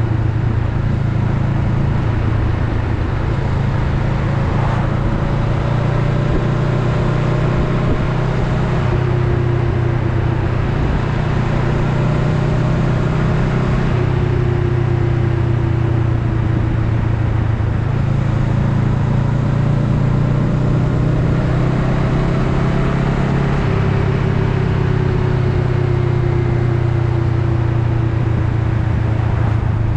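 Honda Rebel 500's parallel-twin engine running steadily while riding, under a constant rush of wind and road noise. The engine note drifts gently up and down in pitch over several seconds with the throttle.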